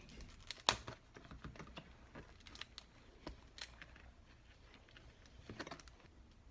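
Faint, scattered clicks and crackles of a plastic and cardboard toy package being handled and pried at while opening it, the sharpest click about two thirds of a second in.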